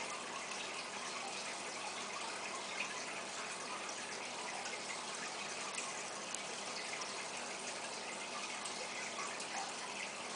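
Steady bubbling and splashing of water churned at the surface of a 125-gallon aquarium, with small droplet ticks scattered through it.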